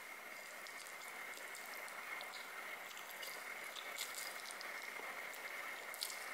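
Chewing and sucking in strands of spicy cheese instant noodles, with scattered faint wet mouth clicks. Underneath is a steady hiss and a thin high whine from the camera's built-in microphone.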